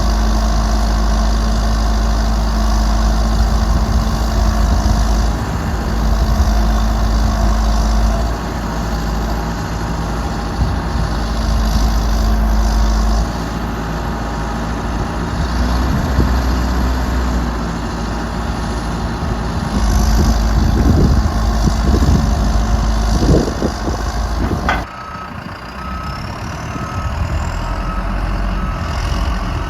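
John Deere 310SJ backhoe loader's diesel engine running steadily, its pitch rising and falling a few times past the middle. In the last few seconds a reverse alarm beeps in an even rhythm over the engine.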